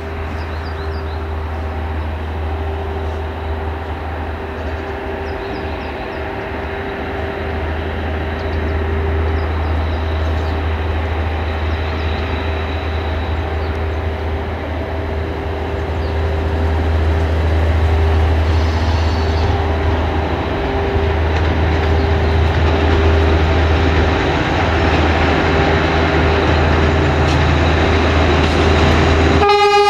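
Diesel-hydraulic locomotive of CFR class LDH 82 running under load as it pulls a passenger train away from the station: a steady low engine rumble with a steady humming tone, growing louder as the locomotive draws closer.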